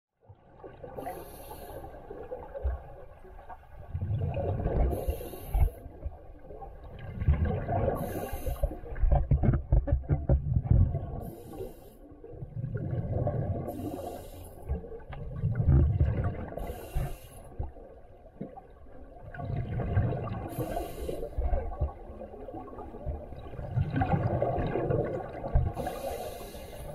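Scuba diver breathing through a regulator underwater. Each breath is a short hiss on the inhale, then a longer rumble of exhaled bubbles, with a breath about every three to four seconds.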